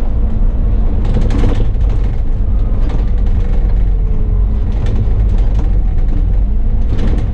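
Bus running on the road, heard from the driver's cab: a steady low engine and road rumble with short knocks and rattles from the body every second or two.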